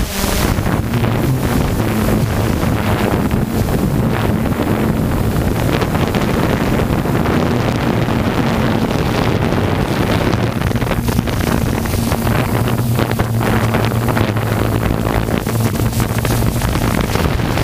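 DJI F550 hexacopter's six electric motors and propellers droning steadily in flight, a constant low hum whose pitch shifts only slightly, heard from the camera on the frame with wind rushing over the microphone.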